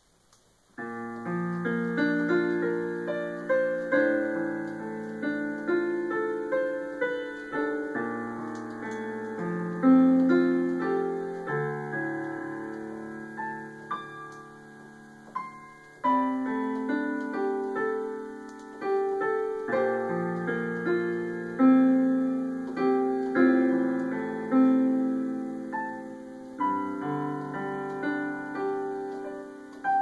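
Sampled piano from a FluidSynth piano soundfont on a Raspberry Pi 2, played live from a USB MIDI keyboard and heard through small desktop speakers. Sustained chords under a melody begin about a second in and carry on in phrases.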